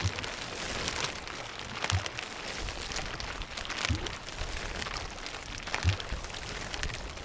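Oars rowing a small boat: water splashing, with a short low knock every second or two, over a steady rushing noise of wind and rain.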